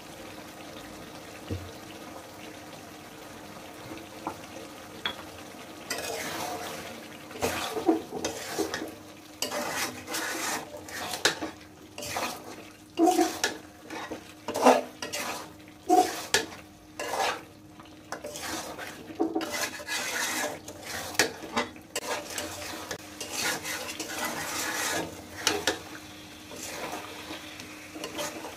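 Metal spoon stirring a thick chicken curry in a kadai, scraping and clinking against the pan in irregular strokes that begin about six seconds in. Underneath is a faint, steady frying sizzle.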